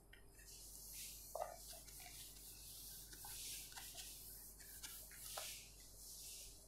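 Faint rubbing of a handheld whiteboard eraser wiping the board clean in repeated strokes, with a few light knocks.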